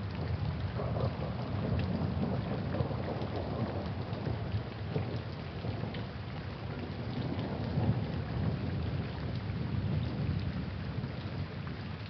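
Steady rain with a low, rolling thunder rumble that swells and eases.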